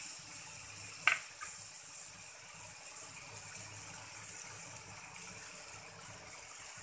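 Buttered bread sandwiches sizzling on a hot nonstick tawa, toasting on their second side: a steady hiss. A single sharp click comes about a second in.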